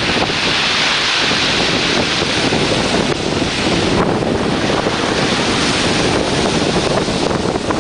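Strong gusty wind blowing over the microphone, a loud steady roar with a hissing top that eases briefly about four seconds in and then builds again.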